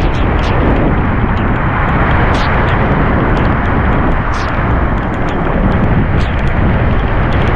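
Howling onshore wind buffeting the microphone: a loud, steady roar mixed with surf and heavy rain, with scattered sharp ticks.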